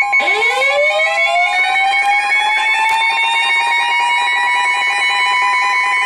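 Layered weather warning alarms: a rapidly pulsing beep over a steady high alert tone, joined about a quarter second in by a siren winding up from a low pitch and levelling off at a steady wail, sounding for a tornado warning.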